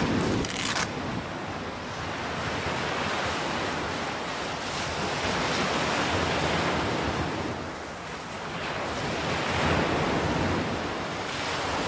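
Sea surf breaking and washing up the beach, swelling and ebbing over several seconds, with wind on the microphone.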